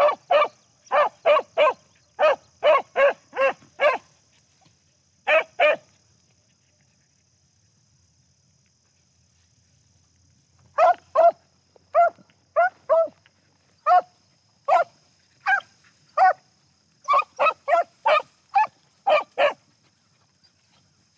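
Beagles giving tongue while trailing a rabbit: quick runs of short, ringing barks. The barking stops for about five seconds, starting around six seconds in, then picks up again in another quick run.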